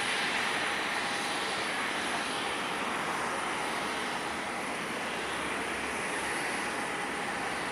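Twin jet engines of a Japan Airlines Boeing 777 running at taxi idle: a steady rushing hiss with a faint thin whine over it.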